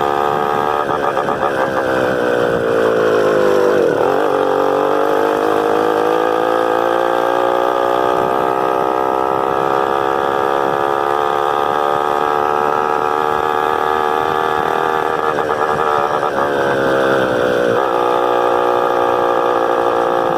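Honda CG 125's single-cylinder four-stroke engine running under way on a ride. Its pitch drops about four seconds in and climbs back steadily, then dips and recovers again a couple of times near the end, as the throttle is eased and reopened.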